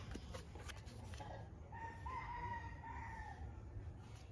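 A faint, drawn-out call of a fowl, lasting about a second and a half and starting a little before the middle, over low background hiss.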